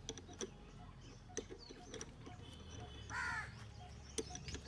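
A crow caws once about three seconds in, a single harsh arched call. Light clicks come from the mirror mount being hand-tightened on the scooter, and faint small-bird chirps sit behind.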